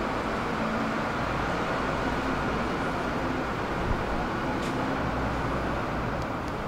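Steady vehicle noise: an even rumble with a hiss, with one short knock about four seconds in.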